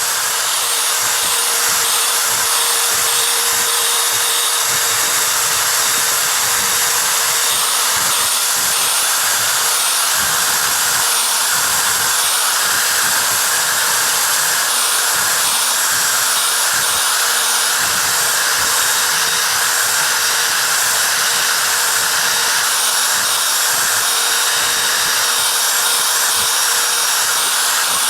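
Router spindle on a Longmill MK2 CNC running steadily while a 60-degree V-bit carves wood, its high whine dipping briefly again and again as the bit takes load during pocketing or outline V-carving.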